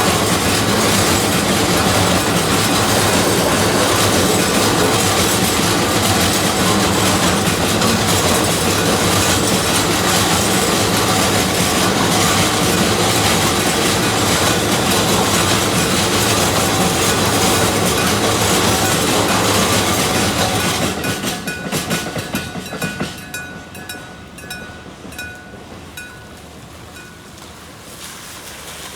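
A freight train rolls loudly over the level crossing, its wheels clattering over the rail joints, and fades away about 21 seconds in. This leaves the crossing's electric struck-bell warning signal clanging in quick, repeated strokes until it stops shortly before the end.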